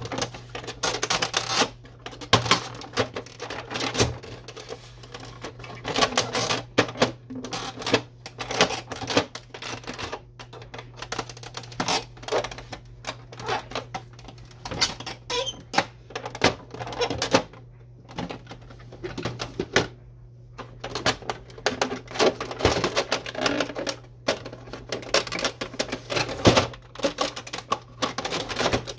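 Plastic housing of an Epson XP-340 inkjet printer being worked loose and lifted off by hand: a busy run of irregular clicks, knocks and rattles of plastic on plastic.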